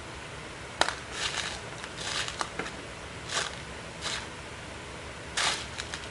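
Computer hardware being handled during PC assembly: a sharp click about a second in, then several short scraping and rustling sounds with a few small clicks in between.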